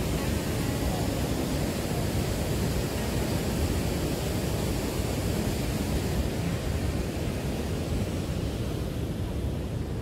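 Steady rushing roar of Niagara Falls and the river below, with some wind on the microphone.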